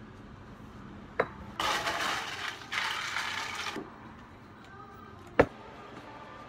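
Ice cubes rattling into a plastic cup in two scoops, each about a second long, after a short click. Near the end comes a single sharp knock, like a cup set down on the counter.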